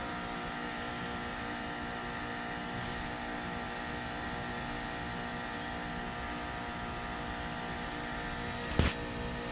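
2019 Carrier Comfort 14 heat pump outdoor unit running steadily through a defrost cycle: its compressor hums with several steady tones. One sharp knock sounds near the end.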